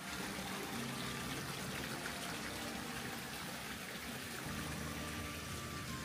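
Small stream trickling steadily.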